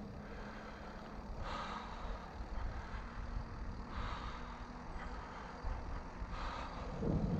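Mountain bike rolling along a paved road: a quiet, steady low rumble of tyres on asphalt, with a faint even hum for the first few seconds.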